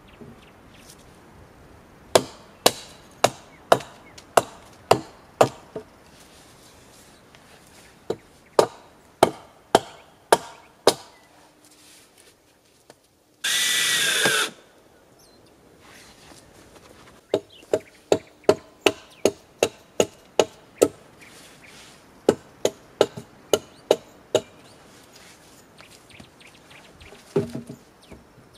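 Hammer blows on logs, about two a second in runs of six to eight, with pauses between the runs. About halfway through, a small handheld power tool runs in one short burst of about a second.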